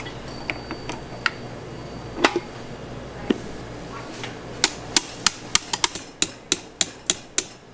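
Stand mixer's wire whisk attachment knocking against a stainless steel mixing bowl: a few scattered taps, then a quick run of about a dozen sharp metallic clicks in the second half.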